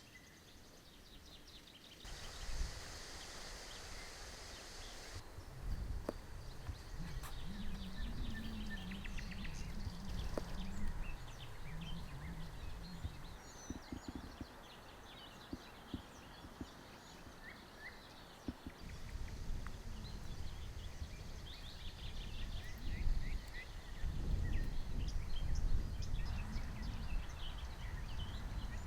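Small birds chirping in the forest over uneven low rumbling noise, with a few sharp knocks and a short burst of hiss a couple of seconds in.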